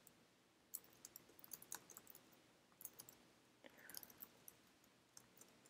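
Faint computer keyboard typing: scattered keystroke clicks in short, irregular runs.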